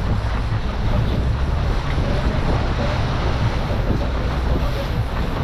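Fishing boat under way at slow trolling speed: the engine runs steadily while wind buffets the microphone and water rushes along the hull.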